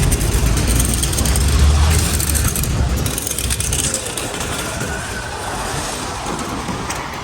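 A road vehicle passing on a city street: a low rumble with tyre noise, loudest in the first few seconds and then easing into steady traffic noise.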